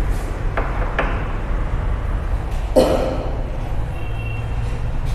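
Classroom background noise: a steady low rumble with two faint clicks about a second in and a brief scraping or rustling noise near three seconds.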